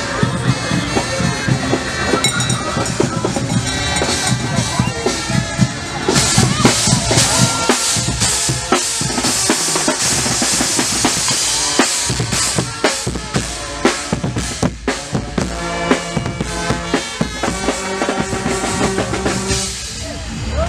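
Carnival marching band drumming, bass drum and snare beating a steady rhythm, with a bright hiss of cymbals through the middle.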